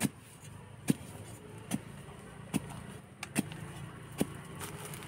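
A digging tool chopping into soil in a steady rhythm, about one stroke a second, with a low steady engine hum underneath.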